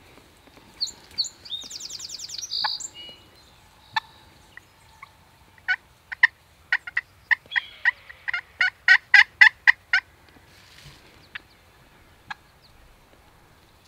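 Wild turkeys calling: a rapid rattling gobble about two seconds in, then a run of a dozen or so sharp yelps, about three a second, ending near ten seconds, with scattered single clucks around them.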